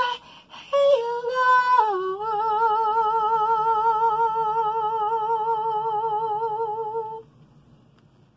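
A man singing unaccompanied: a few short sung notes, then one long high note held with a steady vibrato, which ends about seven seconds in.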